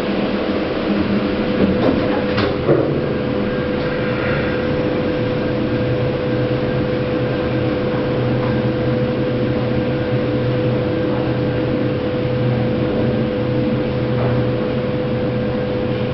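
KONE EcoDisc gearless lift running downward: a steady high whine from the drive, joined by a low hum after a couple of clicks about two and a half seconds in.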